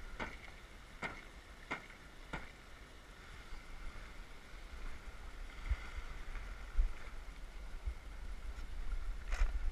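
Sailboat under way: water rushing along the hull, with wind rumbling unevenly on the microphone. Four sharp knocks come about two-thirds of a second apart in the first couple of seconds.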